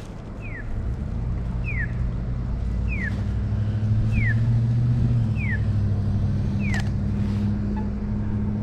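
Accessible pedestrian crossing signal chirping: six short falling chirps, about one every 1.2 seconds. Under it a vehicle engine hums steadily, growing louder around the middle.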